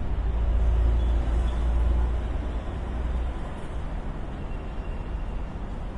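City street traffic: a steady wash of road noise under a vehicle's deep engine rumble, which is loudest over the first three seconds and then eases off.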